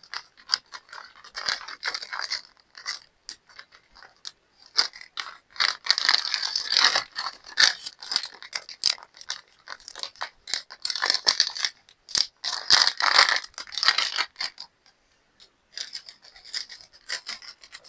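Plastic packaging rustling and rattling as items are handled and rummaged from a box, with a scatter of small clicks and scrapes that come in denser bursts.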